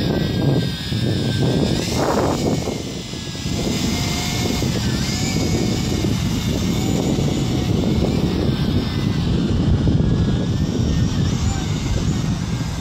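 Tarantula X6 toy hexacopter's six rotors whining overhead, the pitch drifting up and down as it flies, under heavy wind rumble on the microphone.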